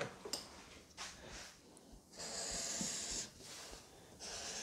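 Permanent marker scratching across brown paper in two strokes of about a second each, a soft high hiss.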